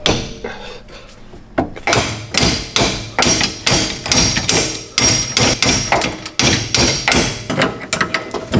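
A hammer striking metal over and over, about two to three blows a second, each blow ringing briefly.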